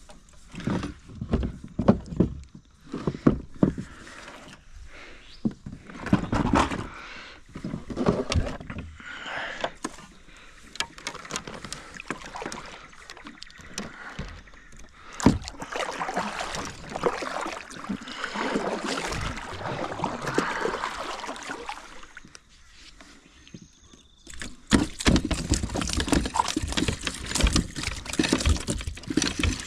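Water splashing and sloshing, with irregular knocks and rustles from handling, louder again near the end.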